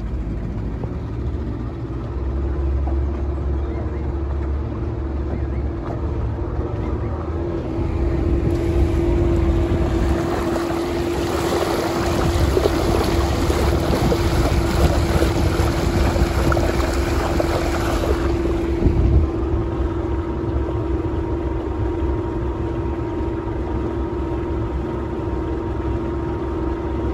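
A small fishing boat's motor running steadily at a constant pitch while under way. About a third of the way in, the rush and spray of water along the hull grows loud, then drops away again about two-thirds through, just as a single thump sounds.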